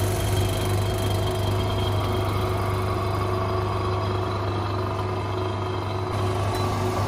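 Vacuum pump of a phone-screen vacuum laminating machine running with a steady low hum as it draws the chamber down.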